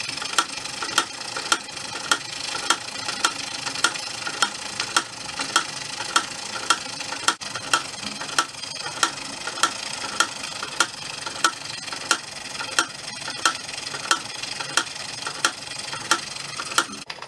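A Cheddar Models Pipit single-cylinder oscillating steam engine drives a toy line shaft through coiled-spring belts. There is a steady hiss, and a sharp click repeats about every 0.6 seconds.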